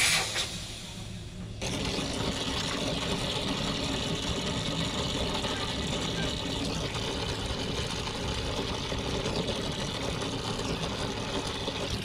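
Nitrogen purge hiss through the copper tubing cutting off at the start, then a brazing torch flame burning with a steady, even rushing noise from about a second and a half in, as the capillary tube is brazed into the evaporator coil.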